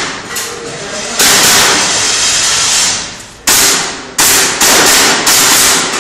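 Airsoft gun firing during a timed shooting stage: a series of sharp cracks, each with a long fading tail, about five in all, with two shots less than half a second apart near the end.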